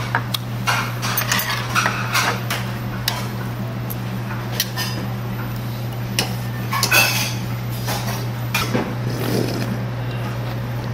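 Metal chopsticks clinking and scraping against an earthenware ttukbaegi and small dishes on the table, in scattered sharp clinks that are busiest in the first few seconds and again around seven seconds in. A steady low hum runs underneath.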